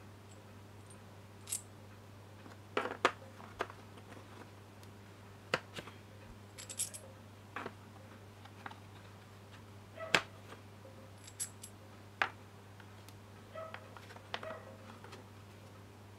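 Metal pieces of an A/C compressor clutch tool set being handled and set into a plastic carrying case: scattered clicks and knocks, several with a bright metallic clink.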